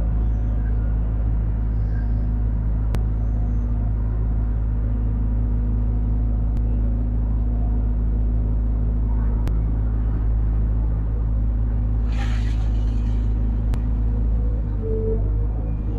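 Diesel engine of a Sumitomo SH210 long-arm amphibious excavator running steadily, heard from inside the operator's cab as a low rumble with a steady hum. A brief hiss comes about twelve seconds in.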